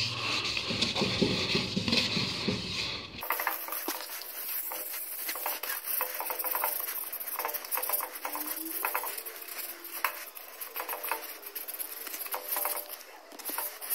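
Sandpaper rubbing and scraping by hand over an alloy wheel's spokes, scraping off leftover filler in quick, irregular strokes. About three seconds in, the low background hum drops away and only the scratching continues.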